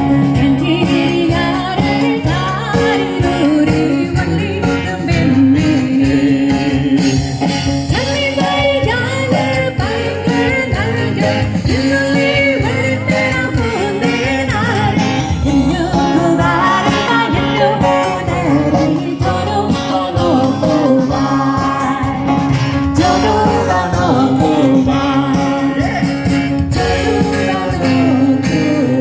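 A Tamil song with a male singing voice over instrumental backing, playing steadily and loudly.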